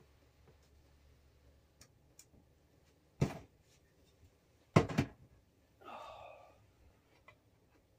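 Sharp knocks from work on the wiring: one about three seconds in, then a quick louder pair near five seconds, followed by a brief pitched sound.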